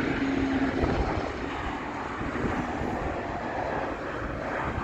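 Jet airliner's engines as it comes in to land, a steady rushing noise that eases a little after the first second.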